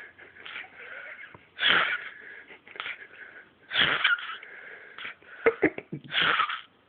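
Snoring: three loud, rasping breaths about two seconds apart, with quieter breathing between them and a few short clicks between the second and third.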